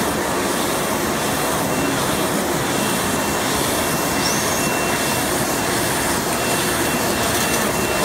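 Small cigarette making machine running at production speed: a steady, dense mechanical whir with a thin high whine over it, and a brief small chirp about halfway through.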